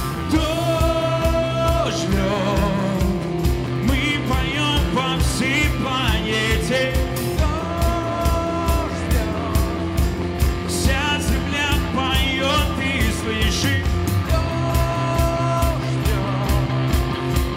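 A live worship rock band plays with a steady beat: a man sings lead over electric guitars, keyboard and a drum kit.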